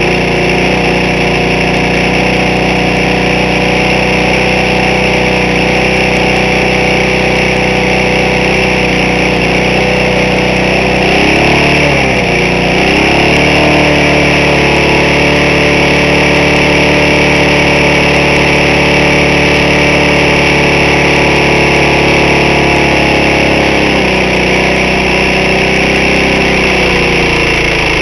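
Briggs & Stratton lawn mower engine running steadily at speed. The engine was earlier run without oil and has a scored cylinder, burnt valves and a badly worn piston with a lot of side play. About twelve seconds in, its speed dips and then picks back up, and near the end it settles to a slightly lower speed.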